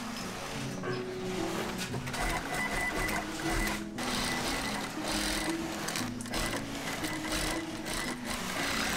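Industrial single-needle sewing machine stitching bra-cup fabric, running in bursts with brief stops.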